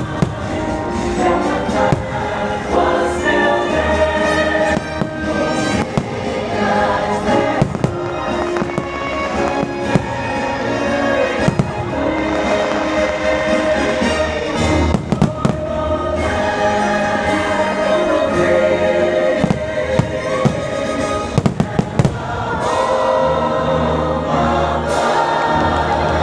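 Fireworks bursting with many sharp bangs and crackles, some in quick clusters, over a loud show soundtrack of music with a choir singing from the park speakers.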